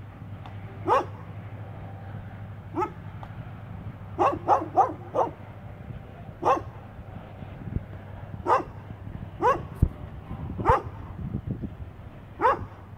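A dog barking repeatedly, single barks at irregular intervals with a quick run of four about four seconds in.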